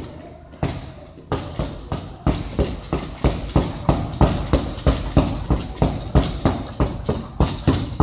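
Punches landing on a double-end bag, a rapid run of sharp slaps. The hits are spaced out over the first couple of seconds, then settle into an even rhythm of about three a second.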